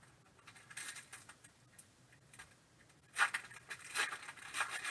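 A foil trading-card pack wrapper crinkling as it is handled and torn open by hand, in crisp rustling bouts, a short one about a second in and a longer, louder one from about three seconds in.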